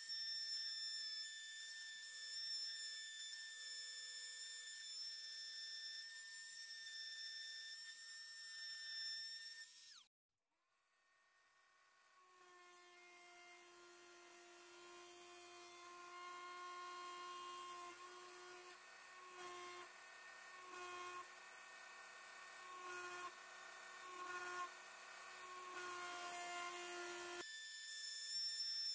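Small high-speed rotary tool running with a steady high-pitched whine as its engraving bit cuts traces into copper-clad circuit board. The sound cuts out about ten seconds in and fades back at a slightly lower pitch, wavering several times as the bit is guided through the copper.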